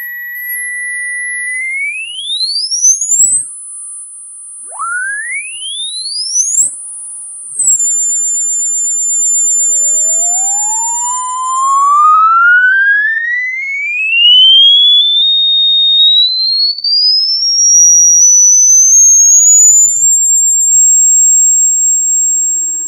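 Synthesized sine tones sold as a rodent-repelling sound: single electronic whistles glide up in pitch and hold high and steady, two quick upward sweeps in the first eight seconds. From about nine seconds in, one tone climbs slowly and evenly from a low hum to a high whistle and holds there until near the end.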